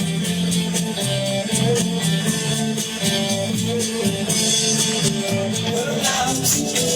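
Background music: a guitar-led rock song playing an instrumental passage between sung lines, with a steady beat.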